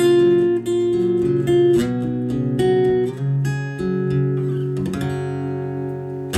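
Acoustic guitar strummed steadily, playing the instrumental end of a song after the vocal line finishes.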